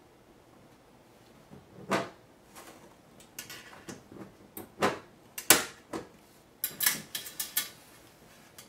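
Metal panels of a SteakAger cabinet clicking and knocking as a panel is pressed and snapped into its grooves by hand: about a dozen irregular sharp clicks, the loudest about halfway, with a quick run of snaps near the end.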